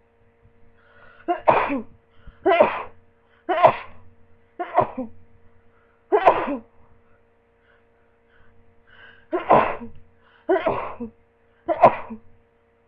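A person sneezing from a cold: eight sharp sneezes in rapid succession, about one a second, with a pause of about three seconds after the fifth and short in-breaths before some of them.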